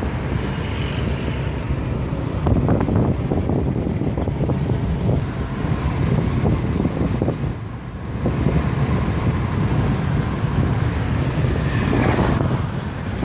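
Wind buffeting the microphone over the steady rumble of a car driving along the road.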